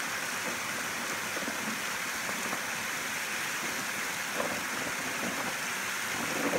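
Shallow creek water running steadily over a low rock ledge in a row of small cascades.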